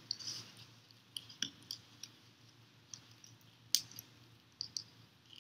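Faint crisp clicks and rustles of fresh green tule reeds and a tule-strip string being handled as a knot is pulled tight around a small reed bundle, with one sharper click nearly four seconds in.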